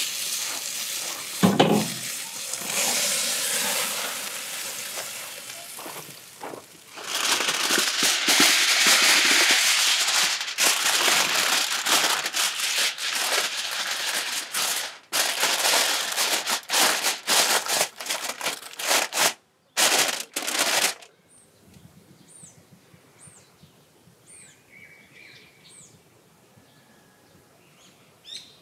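Tomahawk steak sizzling on the grill. Then aluminium foil crinkles and crackles in many sharp strokes as it is laid over the steak. Near the end it goes quiet, with a few short bird chirps.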